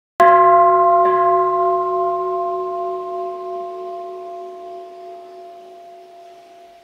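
Hammered metal singing bowl struck once with a cloth-wrapped wooden mallet, ringing with several steady overtones that slowly die away. A faint second touch of the mallet comes about a second after the strike.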